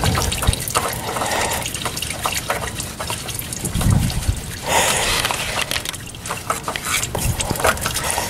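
Oil trickling and dripping into a drain pan, with scattered light clicks and scrapes of a hand threading a new oil filter onto its mount.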